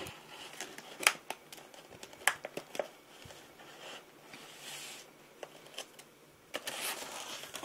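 Stiff clear-plastic clamshell packaging being handled: scattered sharp clicks and taps, with short stretches of crinkling.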